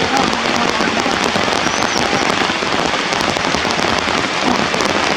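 Steady rain, a dense patter of drops hitting surfaces, with a few faint short squeaks in the background.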